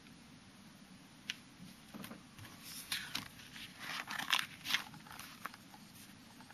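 Plastic album sleeve pages being handled and turned: one click, then a few seconds of crinkling and clicking from the plastic.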